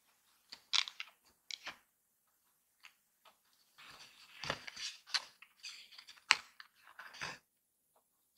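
Cardstock being handled on a cutting mat: scattered sharp clicks and taps, and a longer papery rustle about four seconds in, as the card is worked with a craft knife, turned over and folded.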